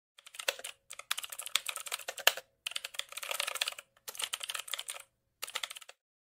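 Typing sound effect: rapid computer-keyboard key clicks in about five quick runs with short pauses between them, stopping near the end.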